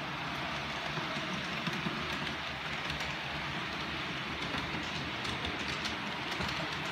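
OO gauge model train, a Warship diesel locomotive hauling passenger coaches, running along the track: a steady rolling whirr of wheels and motor with faint scattered clicks.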